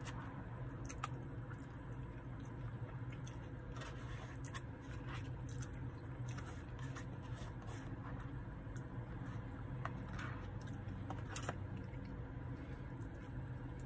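Eating sounds: chewing and a plastic fork scraping chili from a paper food tray, with scattered small clicks and scrapes, over a steady low hum.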